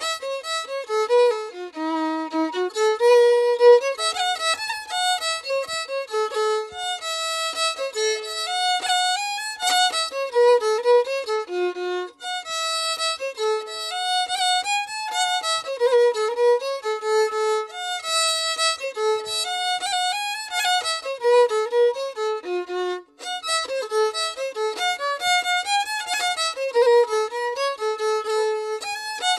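Background music: a solo violin playing a quick melody of short notes that run up and down.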